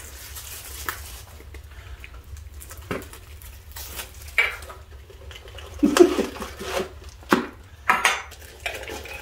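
Metal Funko Soda collectible cans being handled and opened by hand: irregular metallic clicks, clinks and rattles, a few louder knocks among them.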